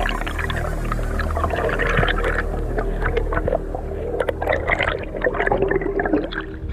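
Underwater water noise on a diver's camera: dense crackling, clicking and bubbling as the spearfisher kicks up toward the surface, easing off about six seconds in as he reaches it.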